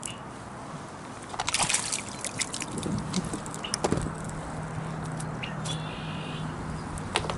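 Small splashes and drips of water with a run of sharp clicks as a fishing line and bobber are handled at the water's surface beside a kayak; the clicks come thickest between about one and a half and four seconds in. A low steady hum sets in about three seconds in.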